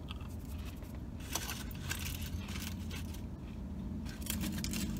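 Crunching and chewing of a crispy fried onion ring, a run of small crackles that starts about a second in, over a steady low hum.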